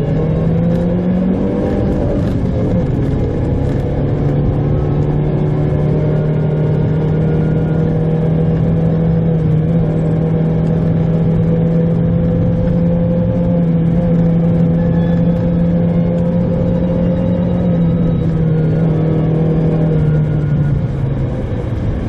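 Mitsubishi Pajero Mini engine heard from inside the cabin, pulling steadily along a snowy road. Its note rises about a second in, holds level, then drops away near the end.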